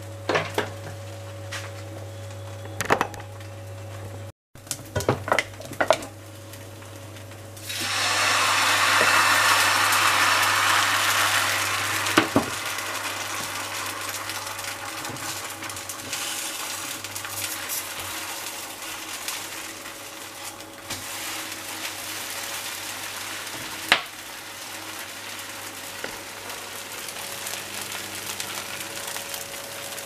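Crepe batter frying in a hot pan: about eight seconds in a loud sizzle starts, then settles into a steady, quieter sizzle, with a few sharp clicks of utensils against the pans. Before the sizzle there is a low steady hum with scattered clicks.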